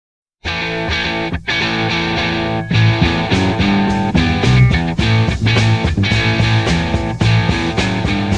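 Psychedelic rock band music starting abruptly about half a second in: electric guitar, bass and drums playing an instrumental intro.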